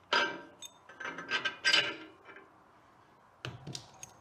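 Steel engine parts scraping and clinking against the cast-iron gear case of a John Deere Model E hit-and-miss engine as they are worked loose by hand: a handful of short rubs and metallic clinks, the loudest about two seconds in.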